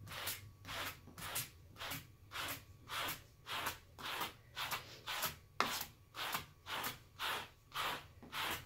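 Slicker brush with plastic-coated pin tips raked hard through Luxe Shag faux fur, one rasping stroke about twice a second. The fur is being brushed out down to the backing before shaving.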